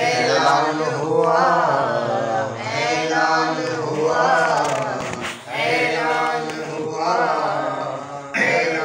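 A man's voice reciting an Urdu devotional qaseeda in a chanting, sung style, in long melodic phrases with short breaths between them, one brief break about five seconds in.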